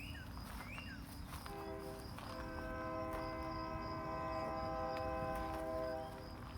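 Distant train horn sounding one long chord of several steady tones, coming in about a second and a half in and holding for about four and a half seconds before cutting off. A steady high insect buzz runs underneath, and a bird gives a couple of short rising calls at the start.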